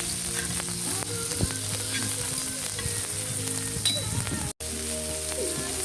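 Meat sizzling as it grills over a wood fire, a steady hiss dotted with small pops, cut off briefly about four and a half seconds in.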